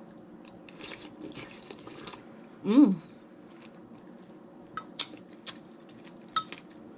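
Close chewing of a mouthful of fresh berries and pomegranate seeds, with faint wet crunching. About three seconds in there is a short hummed "mmm" that rises and falls, and a few sharp clicks come in the last two seconds.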